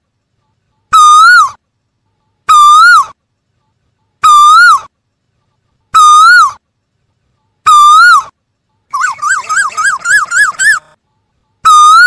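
Male Asian koel calling: five loud single calls about a second and a half apart, each rising and then dropping away. They are followed by a quick run of about eight short rising notes, then one more call near the end.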